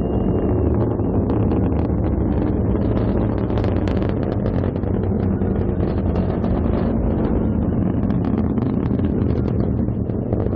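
GSLV Mk II rocket roaring in flight: a steady, deep rumble with a crackle over it and no break.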